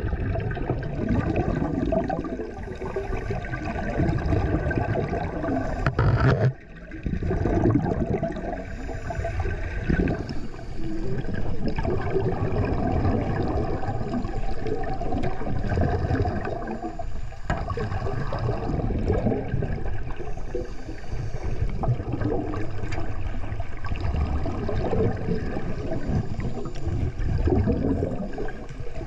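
Water sloshing and gurgling as heard by a camera held underwater beside a shark cage, muffled and uneven, with a brief drop-out about six and a half seconds in.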